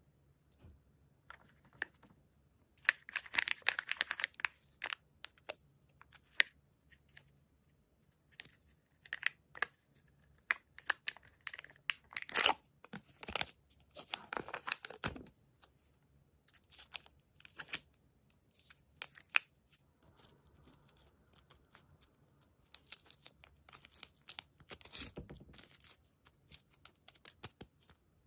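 Wrapping being torn and crinkled close to the microphone in irregular bursts of crackles and sharp clicks. The busiest stretches come a few seconds in and again about halfway through.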